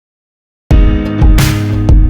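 Music starts abruptly from silence a little under a second in, loud and with a steady beat of drum-like strokes under sustained instrument tones.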